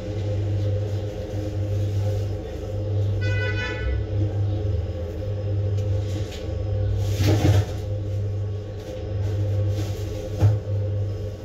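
A steady low hum, with a brief high-pitched beep about three seconds in and a couple of knocks later on.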